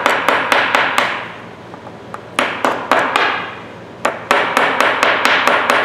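Small steel screwdriver tapping and prying at a rusted ratchet's gear-and-pawl assembly: sharp metallic clicks with a short ring, about four a second, in three runs. The mechanism is frozen with rust.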